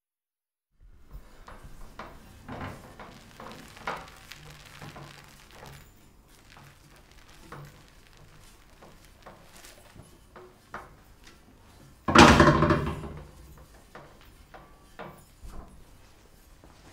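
Etching press for photogravure being turned by its large handwheel: scattered clicks and knocks from the mechanism. About two-thirds of the way in there is a louder clatter that lasts about a second.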